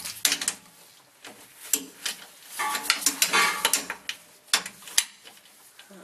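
Irregular metallic clinks and scrapes of a hand wrench working the top bolts of a rear differential cover, some with a brief metallic ring.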